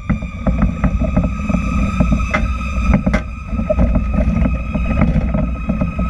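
Fire truck siren held at one steady high pitch over the rumble of the ladder truck's engine and road noise, with rattles and clicks from the moving cab.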